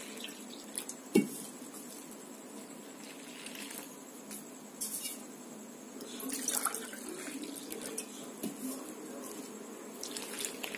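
Water poured from a steel tumbler onto rice flour in a metal pot, in several short splashing pours, with a light knock about a second in.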